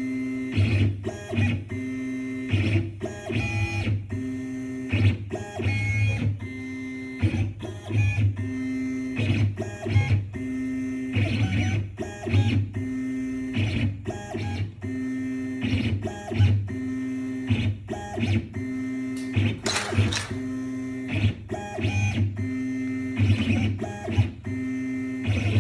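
CNC machine's stepper motors whining in steady tones that jump in pitch and start and stop every half second to a second as the axes move through a dry run without cutting.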